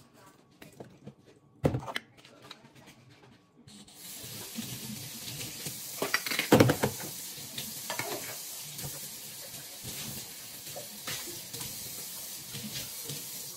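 Dishes knocking in the sink, then a kitchen tap turned on about four seconds in, water running and splashing steadily while dishes clink and clatter, loudest about halfway through.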